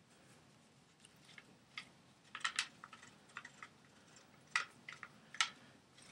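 Faint, irregular clicks and light taps as the shaft of a two-piece Mayhem pool cue is screwed into its butt by hand, the joint turning under the fingers.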